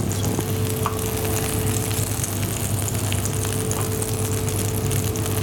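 Oil sizzling steadily in a frying pan of green peppers and tomatoes, over a steady low hum.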